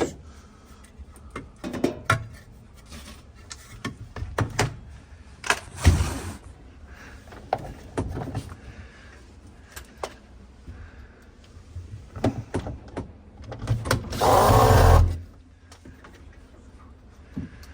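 Scattered knocks and clatter of refrigerator panels and parts being handled and refitted. About fourteen seconds in, a small electric power-tool motor runs briefly and loudly, driving a screw.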